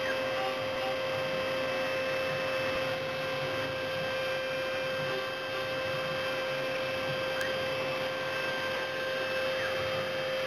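CNC milling machine running steadily, its spindle giving a constant whine over a steady rushing noise.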